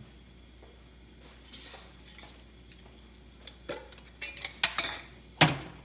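Kitchenware being handled: a few scattered clinks, then a quicker run of clattering knocks and clinks, the loudest one near the end.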